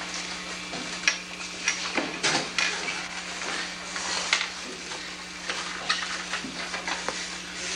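Classroom room noise: scattered light knocks and rustles as children move about, over a steady hiss and low hum.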